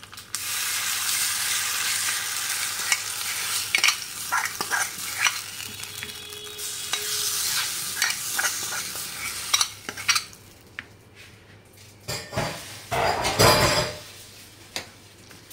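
Hot tempering oil with mustard seeds and curry leaves sizzling as it is poured onto semolina batter, with a steel spoon clicking and scraping in the small frying pan. The sizzle dies away about ten seconds in, and the spoon then scrapes and stirs in the batter bowl, loudest near the end.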